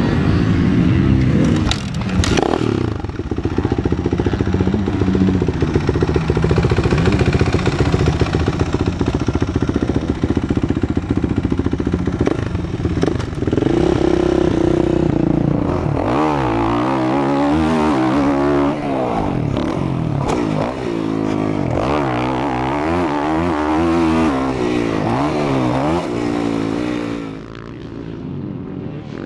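Motocross dirt bikes running on the track, engines revving up and down as riders accelerate and shift. In the second half several bikes can be heard at once, their pitch repeatedly rising and falling, and the sound drops off near the end.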